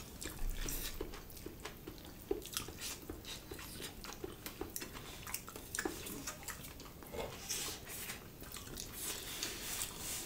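People chewing rice and beef curry with their mouths, with a run of short, wet smacks and clicks from the chewing and from eating by hand.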